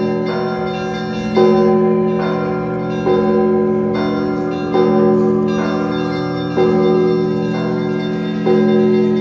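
Orthodox church bells ringing for Easter: several bells with long, overlapping ringing tones, a heavy strike about every two seconds and lighter strikes in between.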